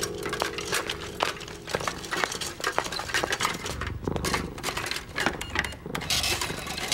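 Tin cans clinking one after another as they are unloaded from a wire trolley onto a shop counter: a quick, irregular run of metallic clicks and clatters.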